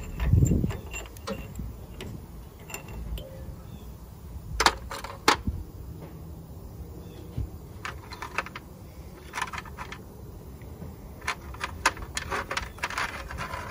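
Steel pushrods being pulled out of a John Deere 2010 engine's cylinder head and handled, giving a scatter of sharp metallic clicks and clinks that come thicker near the end. A dull bump about half a second in.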